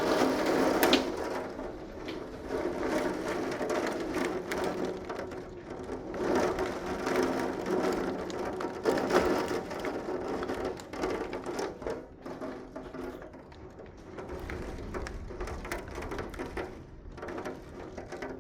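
Rain falling on hard surfaces, a dense patter whose level swells and eases unevenly.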